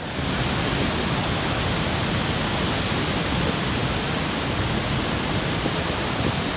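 Niagara Falls roaring: a loud, steady rush of falling water that sets in suddenly at the start.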